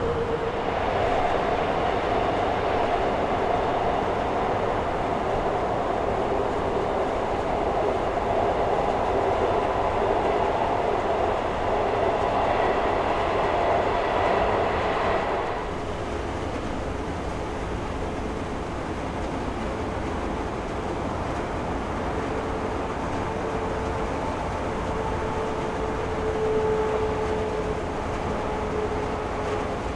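Airbus A350-900 jet engines (Rolls-Royce Trent XWB) running, a steady noise with a faint whine. About halfway through it suddenly drops to a quieter, steady engine sound with a different whine.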